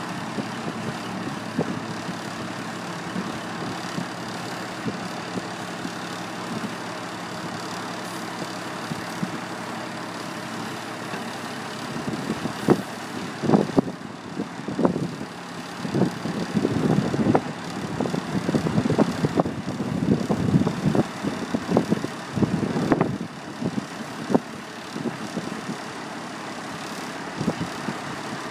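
Semi tractor's diesel engine idling steadily while the end-dump trailer's box is raised on its hydraulic hoist. A little under halfway through, uneven louder bursts come over the idle for about ten seconds, then it settles back to a steady idle.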